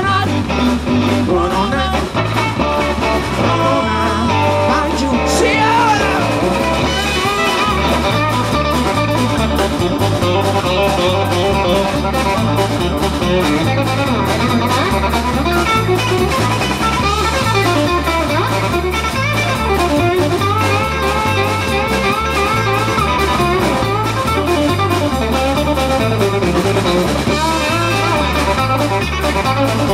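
Live blues band playing: electric guitar over bass guitar and drums.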